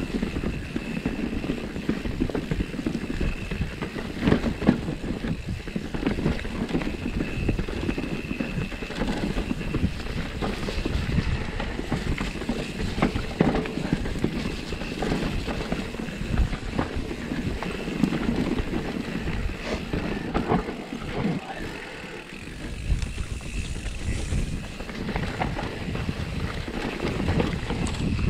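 Wind rumbling on the microphone outdoors, a steady low noise with a brief dip about three quarters of the way through.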